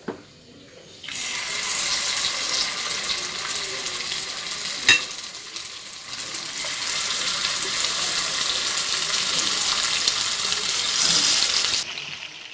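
Marinated chicken pieces sizzling as they shallow-fry in hot oil in a pan. The sizzle starts about a second in and cuts off just before the end, with one sharp knock near the middle.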